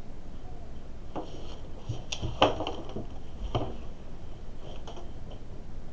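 A few short light knocks and clicks from the paper and clipboard being handled on a wooden table, over the faint scratch of a pen drawing on paper.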